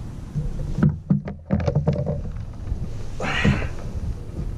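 A large speckled trout being landed by hand into a plastic kayak: a cluster of knocks and clatter on the hull about a second in, then a brief rush of noise a little after three seconds.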